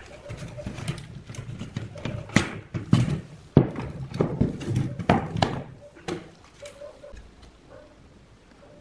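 Irregular knocking and clattering of hard parts being handled, with several sharp knocks in the middle, then it quiets down.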